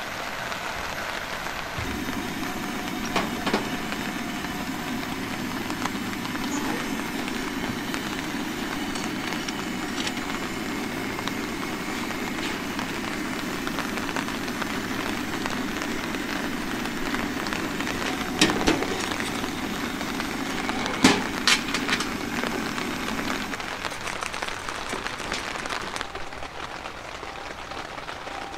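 Camp stove burner flame burning with a steady low rush over steadily falling rain, with a few sharp knocks, the loudest about 18 and 21 seconds in. The burner sound stops a few seconds before the end, leaving the rain.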